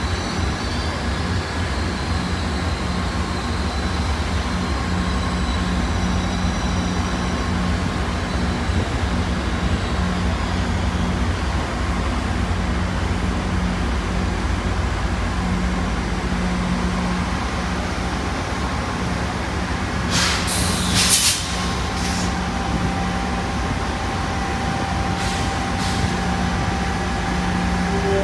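Metrolink diesel locomotives running with a steady low drone as an inbound train led by an F125 pulls into the station. Bursts of air-brake hiss come about two-thirds of the way in, and a shorter pair of hisses follows. A steady high tone sets in after the first hiss.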